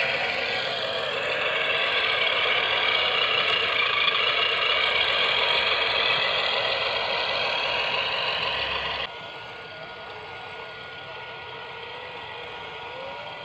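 Radio-controlled model truck running, a steady mechanical whir that drops suddenly in level about nine seconds in.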